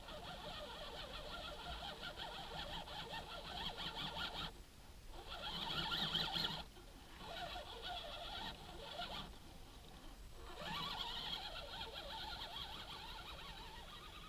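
Axial SCX10 RC rock crawler's electric motor and geared drivetrain whining as it crawls, the whine cutting out and picking up again three times as the throttle is let off and reapplied.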